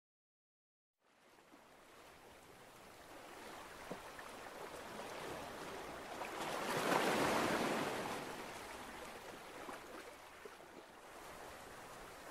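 Sea waves: surf fades in after a second of silence, swells to one loud wash about seven seconds in, then eases off.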